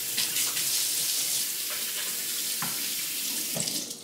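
Kitchen faucet running into a stainless steel sink while hands are washed under it, with small splashes; the water shuts off just before the end.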